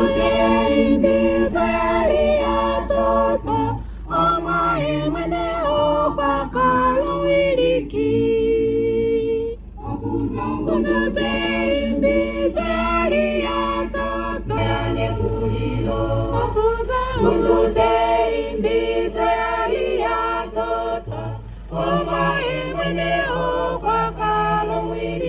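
Vocal music: a group of voices singing in a choir or a cappella style, carrying on throughout, over a steady low hum.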